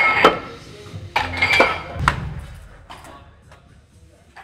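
Small Werksan change plates clinking against a steel barbell sleeve as they are loaded: several sharp metallic clinks with a short ring, in the first two seconds or so.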